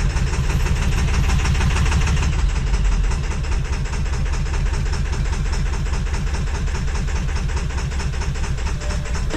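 Ford 7.3 L Power Stroke turbo-diesel V8 running with an even, rhythmic clatter, a little quieter from about three seconds in. The engine misfires and stalls, which the owner suspects comes from a failing injector.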